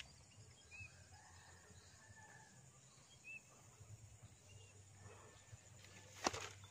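Quiet pond-side outdoor ambience with a few faint, short, high bird chirps spaced out over several seconds, a click at the start and one sharp knock near the end.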